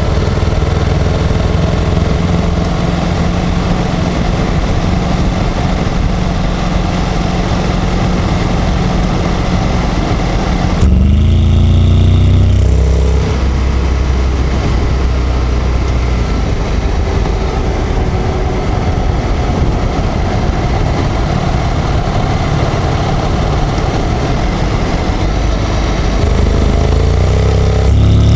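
Honda X-ADV 750's parallel-twin engine and dual-clutch transmission running while the bike is ridden and accelerates, under road and wind noise, recorded to show the dealer a transmission noise. About eleven seconds in the sound changes for a couple of seconds, and near the end the engine's pitch rises.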